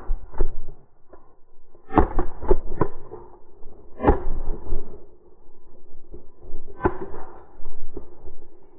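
Shotgun fire: a loud bang about four seconds in with a ringing tail, and another near seven seconds. A quick run of sharp cracks comes around two seconds in, with a few lighter knocks between the shots.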